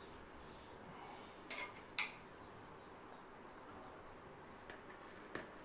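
Quiet kitchen room tone with a faint steady hiss and faint high chirps repeating at intervals, broken by two short clicks about a second and a half and two seconds in.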